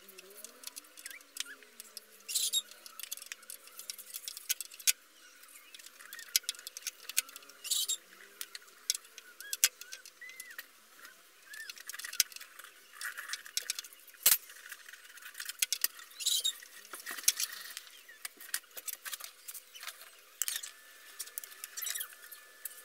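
Irregular metal clinks, taps and scrapes of hand work on a motorcycle's front fork: the fork tube and its fittings being handled at the steering head, with tools knocking against metal. One sharper knock stands out a little past the middle.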